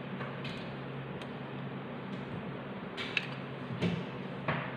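Steady low electrical hum and hiss, with a few short clicks and handling noises about three to four and a half seconds in from hands working twine and a hot glue gun around a foam cup.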